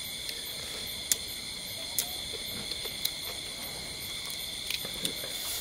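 Night insects keeping up a steady chorus of high-pitched trilling tones, with a few sharp clicks here and there.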